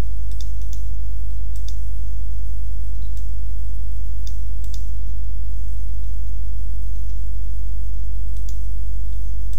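Several scattered computer mouse clicks over a steady, loud low electrical hum.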